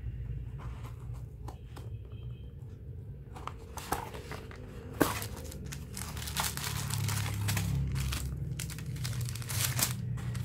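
Cardboard shipping box being cut open and unpacked: a few light scissor snips and taps, then from about five seconds in, paper packaging rustling and crinkling as the contents are pulled out.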